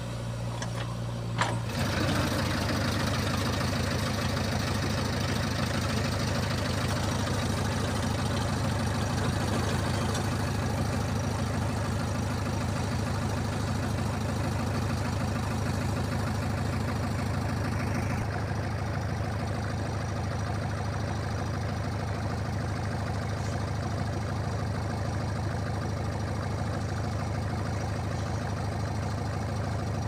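Heavy diesel engine running steadily at an even pitch. A short click comes about a second and a half in, and then the engine sound becomes louder and stays even.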